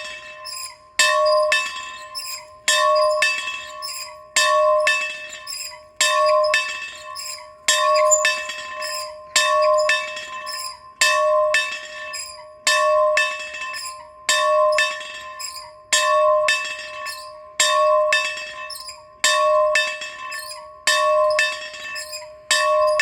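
A single bell rung over and over in a steady rhythm. A loud stroke comes about every 1.7 seconds with a lighter stroke between, and each rings on and fades before the next.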